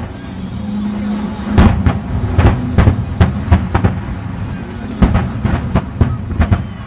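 Aerial fireworks bursting: a dozen or more sharp bangs in quick, irregular succession over a continuous low rumble.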